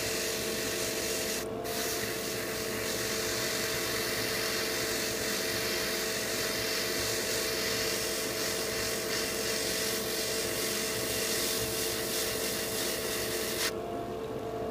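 Gravity-feed dual-action airbrush hissing as it sprays a fine dark pre-shade coat, with a brief break about a second and a half in and stopping shortly before the end. A steady low hum runs underneath.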